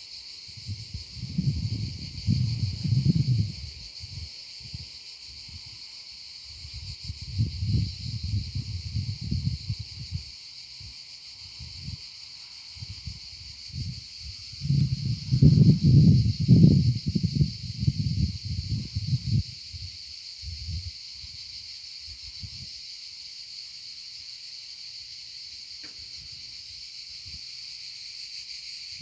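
Steady, unbroken insect chorus, a high shrill drone, with irregular low rumbling bursts over it, the strongest about halfway through.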